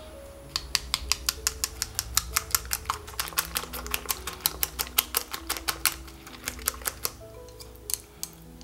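Wooden chopsticks beating eggs in a glass bowl, clicking rapidly against the glass at about six strikes a second, stopping about seven seconds in. Background music plays underneath.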